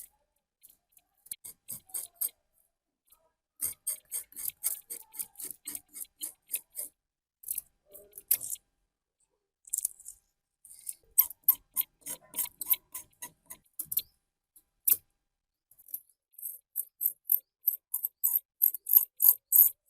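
Runs of short, rapid scraping strokes, about four a second, broken by brief pauses.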